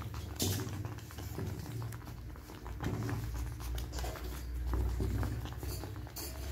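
A spoon stirring thick semolina kichadi in a clay pot: irregular soft, wet slapping and scraping strokes, over a low steady hum.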